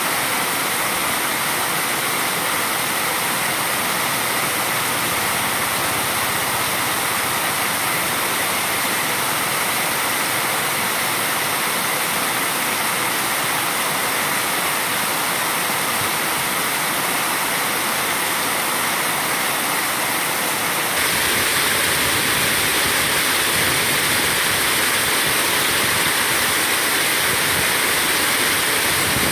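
Water spilling over a low concrete weir: a steady rushing splash of falling water. It becomes a little louder and brighter about two-thirds of the way through.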